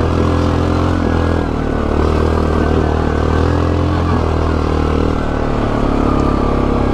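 Yamaha Grizzly 700 ATV engine running steadily while riding, its pitch easing and picking up a little with the throttle.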